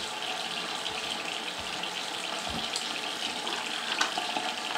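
A steady hiss of running water, with a few faint clicks.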